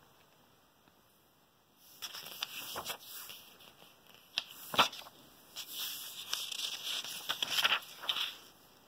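Paper workbook pages being handled and turned: crisp rustling and crinkling with sharp snaps. It starts about two seconds in, with the loudest snap near the middle, and stops shortly before the end.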